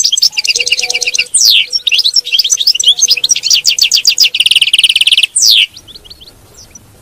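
European goldfinch singing a fast, loud song of rapid twittering trills, ticking runs and downward slurred notes, with a quick buzzy run just before the end. The song stops about five and a half seconds in, leaving a few faint notes.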